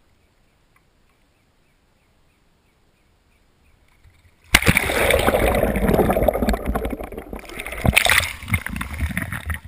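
Kayak capsizing for a roll, its boat-mounted camera going under: about four and a half seconds in, near silence gives way suddenly to loud sloshing and gurgling water around the camera's waterproof housing, with several knocks.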